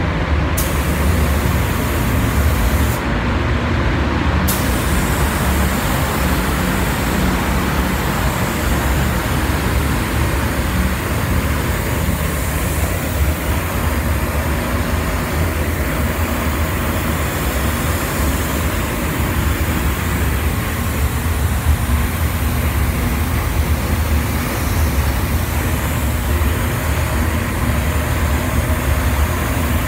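Gravity-feed paint spray gun hissing as compressed air atomises paint onto a car's hood, over a steady low rumble. The hiss cuts out for a second or so about three seconds in, when the trigger is let go, then runs on.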